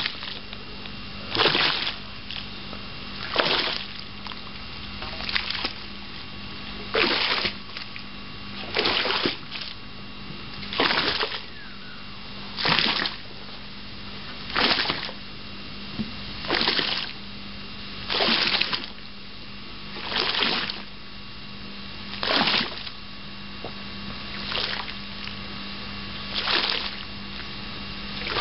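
Hand plunger pushed down through the cap of grape skins on a fermenting red wine, making a wet splash about every two seconds as the juice wells up through the skins. A steady low hum runs underneath.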